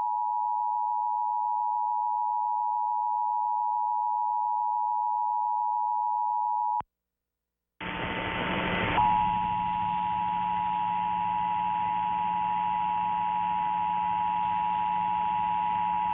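Emergency Alert System two-tone attention signal: a loud, steady dual-tone alarm that cuts off suddenly about 7 seconds in. After about a second of silence, a hissing, humming background comes in, and the same two-tone alarm sounds again over it about a second later.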